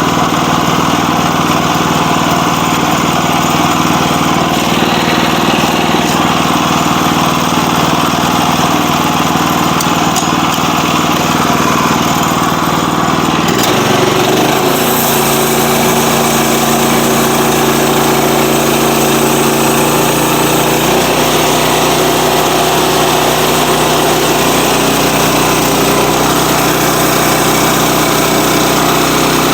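Sawmill's engine running steadily at working speed while a log is sawn. Its note changes abruptly about halfway through, and again a few seconds later.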